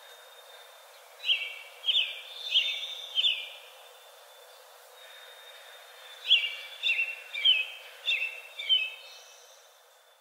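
A bird calling: two runs of short, high chirps about two-thirds of a second apart, four in the first run and five in the second.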